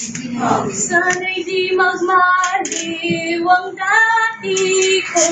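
A young female voice singing a slow melody in long held notes.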